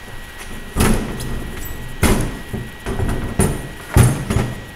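About four sharp knocks and clunks with some rattling in between, from handling a pocket bike's two-part metal wheel rim and tyre.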